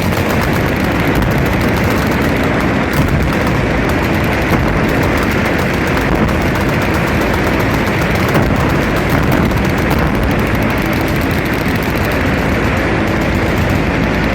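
Many machine guns firing at once in sustained automatic fire, a dense continuous rattle of shots that starts abruptly, with a few louder cracks standing out.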